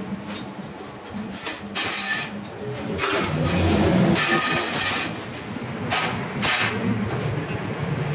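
Laser-cut steel discs being lifted and slid off the cutter's slatted steel bed, giving several short bursts of metal scraping and clanking. A steady mechanical hum runs underneath.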